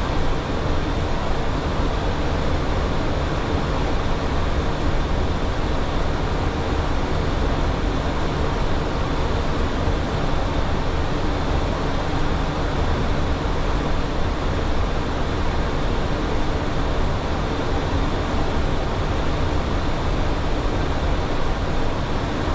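Steady cockpit noise of a Boeing 737 in flight: a constant rush of airflow over the nose mixed with the drone of the engines.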